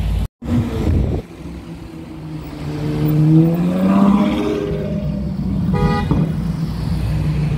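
Ferrari 812 Superfast's V12 engine revving up as the car pulls past at low speed, its note rising in pitch and loudest about four seconds in. A car horn gives a brief toot about six seconds in.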